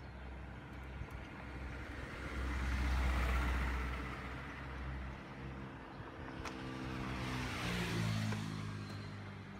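Two motor vehicles driving past one after the other. First a deep rumble swells and fades about three seconds in; then a second vehicle passes near the end, its engine note dropping in pitch as it goes by. There is one sharp click between the two.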